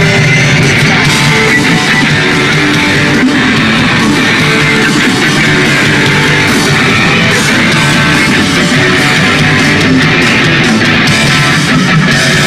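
Pop-punk rock band playing live, with amplified electric guitars and drums, loud and steady.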